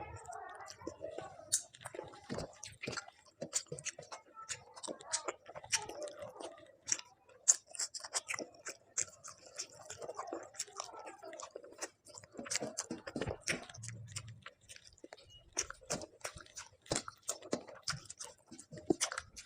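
Close-up chewing and mouth sounds of a person eating: many quick wet clicks and smacks with some crunching bites.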